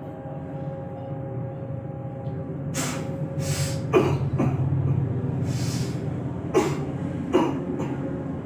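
A person coughing and breathing out hard, about seven harsh bursts starting about three seconds in, over a steady low hum. The coughs fit a patient suffering from a cough with shortness of breath.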